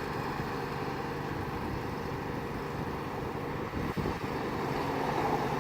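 Riding lawnmower engines running steadily, with one brief knock about four seconds in.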